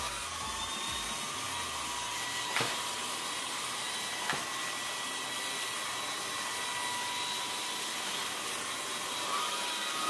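Samsung Jet cordless stick vacuum running steadily with a high motor whine over a rushing of air. Two sharp clicks, about two and a half and four seconds in, as pieces of jelly are sucked up off the floor.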